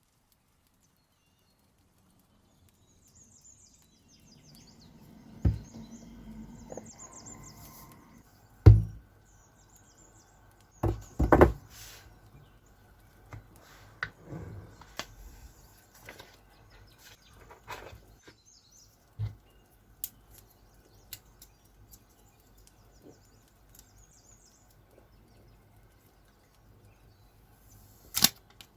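Hands handling an iPad box and its packaging: scattered taps, thuds and rustles, the loudest thud about nine seconds in, with light clicks and handling noise between.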